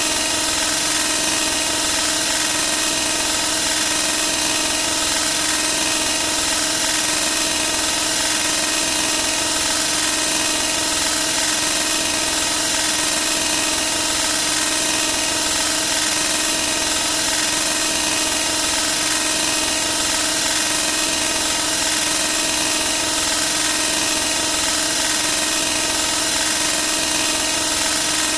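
A steady, unchanging mechanical hum with a high hiss, holding at one level throughout.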